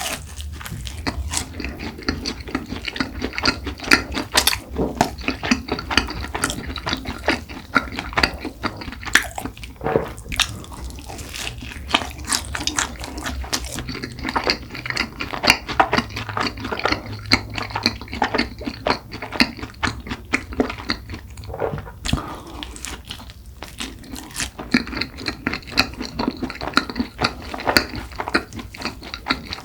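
Close-up chewing and biting of cream-filled cronuts, with many small irregular crackles from the flaky laminated pastry.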